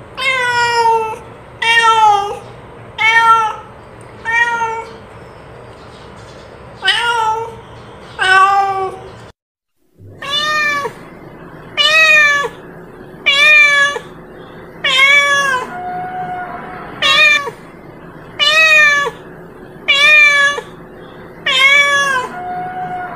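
Domestic cat meowing over and over, calling to other cats. It gives a loud call every second or two, each one rising then falling in pitch, with a couple of softer, flatter mews in the second half. The sound breaks off into a brief silence just over nine seconds in.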